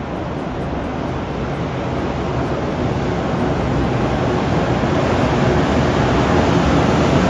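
Train running by, a steady rumbling rush that grows louder as it approaches.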